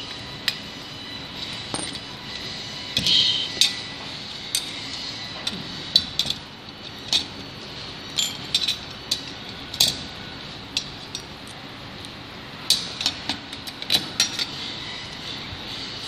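Irregular sharp clicks and clinks of small metal screws, a hex driver and carbon-fibre and aluminium frame parts knocking together and against the workbench as an RC model frame is put together, over a steady background hum.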